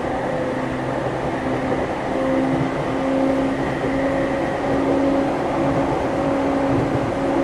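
Running sound inside the motor car of a JR E231 series 900-subseries electric train (MoHa E231-901): its Hitachi IGBT-VVVF inverter and traction motors give a steady whine that climbs slightly in pitch over the first few seconds and then holds, over the rumble of wheels on rail.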